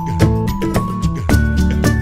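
Background music: an upbeat instrumental track with a steady beat and plucked, guitar-like notes.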